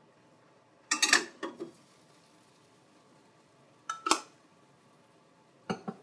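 Dishware clinking and knocking while coffee is being made: a quick cluster of clatters about a second in, two knocks around four seconds, and one more near the end.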